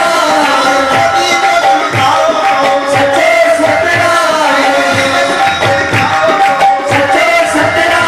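Male voices singing a Sindhi devotional dhuni chant into microphones, sustained and melismatic, over a hand drum beating a steady rhythm of about two to three strokes a second with light percussion ticks.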